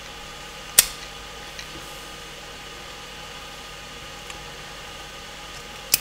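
Two sharp clicks from a small Master padlock and the metal rake in its keyway being handled, the first about a second in and the second near the end, with a few faint ticks between, over a steady low hiss.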